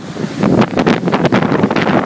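Storm-force wind buffeting the microphone in rapid, irregular gusts, with large breaking lake waves beneath.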